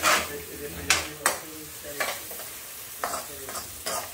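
Long metal spoon scraping and knocking against a frying pan as diced salami, onion and sweet pepper are stirred, in strokes about every half second, over a steady sizzle of the food frying in oil.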